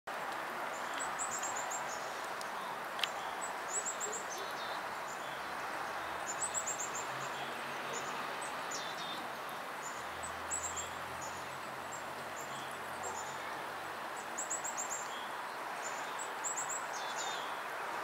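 Black-capped chickadee chittering: short runs of three to five quick, very high notes, repeated every second or so, with a few lower notes in between. A steady background hum runs underneath, and a single sharp click comes about three seconds in.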